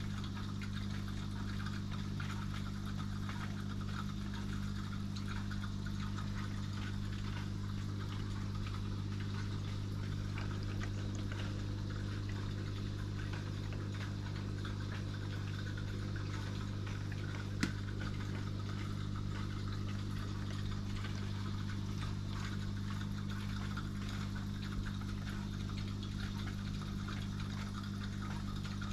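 Aquarium pump humming steadily, with water running in the tank. One sharp click about two-thirds of the way through.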